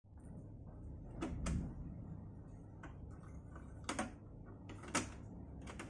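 Sharp plastic clicks and clacks from the cassette door of a Polytron radio cassette player being opened and handled by hand, about eight clicks in all, the loudest a little after one second in, at four seconds and at five seconds.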